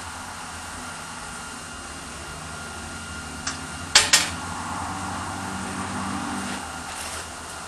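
Steady hum of the shop with the welder running. About four seconds in come two sharp clicks, then a MIG welder's arc crackles for about two and a half seconds as a short tack weld is laid at the foot of a square-tube steel leg.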